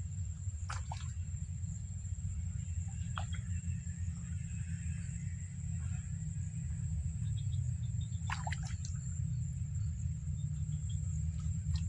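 Pond-side ambience with a steady low rumble and a thin, steady high whine, broken by a few light plops on the water surface, one about a second in, one about three seconds in and the clearest about eight and a half seconds in.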